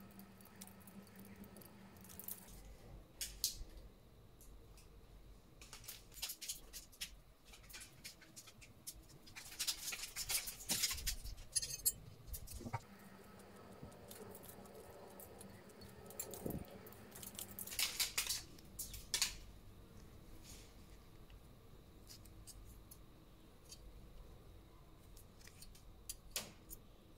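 Small metal clicks and light scraping as the steel pivot screw and nut of a pair of tailor scissors are fitted and turned by gloved hands, with two longer spells of rustling and scraping about ten and eighteen seconds in.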